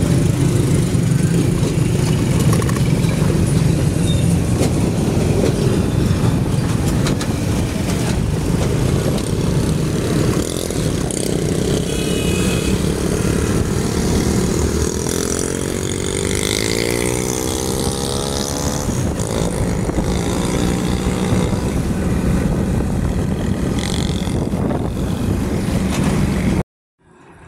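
Vehicle engine and road noise while driving, a steady low rumble, with an engine note rising in pitch about halfway through as the vehicle speeds up. The sound cuts off abruptly near the end.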